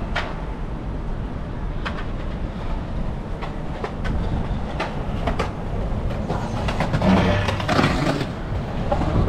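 Wind and road rumble from a moving bicycle, with scattered sharp clicks and rattles and a louder hissing stretch about two-thirds of the way through.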